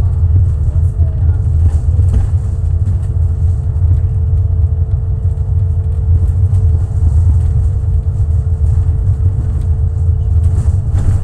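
Double-decker bus's engine and drivetrain running steadily while cruising, heard from inside the upper deck as a continuous low rumble with a faint steady whine above it.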